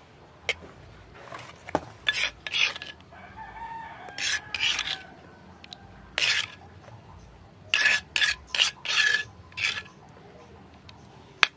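Pieces of tofu rubbed across a rough stone mortar coated with garlic and salt paste, making short scraping strokes again and again. A rooster crows faintly about three seconds in.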